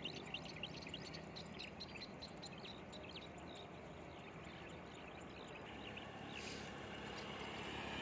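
Small motorcycle approaching from a distance, its faint running noise growing louder over the last couple of seconds. A rapid run of short, high chirps sounds over the first half.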